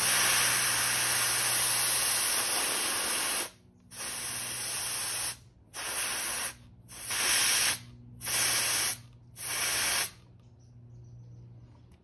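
Air hissing out of a Honda SH150i scooter's front tyre through the valve stem, with a dial pressure gauge held on it. One long release of about three and a half seconds is followed by five shorter bursts as the overinflated tyre is let down from 47 psi toward 25.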